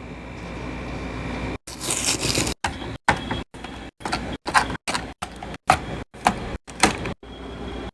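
Restocking handling sounds: items and packaging being picked up and set down, heard as clicks, knocks and rustling. They come in about a dozen very short clips, each cut off abruptly.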